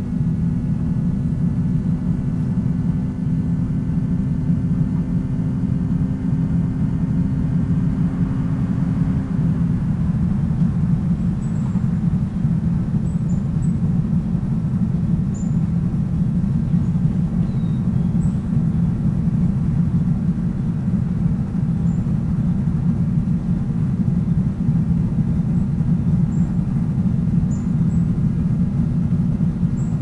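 Steady low rumble of a moving vehicle, with an even hum over it that fades out about nine seconds in. Faint, brief high chirps come now and then later on.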